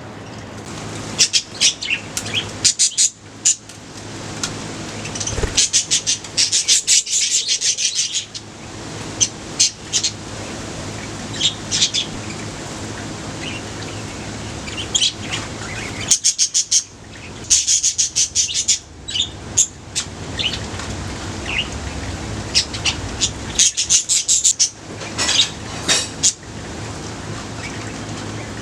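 Budgerigars in a colony chirping in quick bursts of rapid, high chirps with short pauses between, over a steady low hum.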